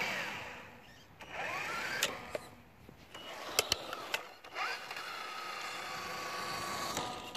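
Traxxas TRX-4 RC truck's 4600 kV sensorless brushless motor on a 2S battery whining in several full-throttle bursts, each sweeping sharply up in pitch, the last held for about two seconds, spinning the tyres hard enough to leave burnout marks on the asphalt. A few sharp clicks come in between.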